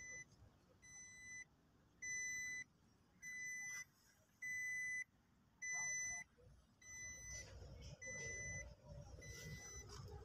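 Toyota Hilux dashboard warning chime beeping over and over, a steady electronic tone about every 1.2 seconds, with the driver's door open. Low rumbling handling noise comes in over the second half.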